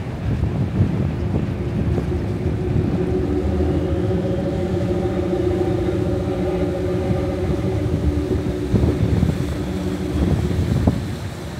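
Car ferry's engines and propellers running astern as it backs into its berth, churning the water, with wind buffeting the microphone. A steady engine drone comes up about three seconds in and fades near the end, with a couple of knocks late on.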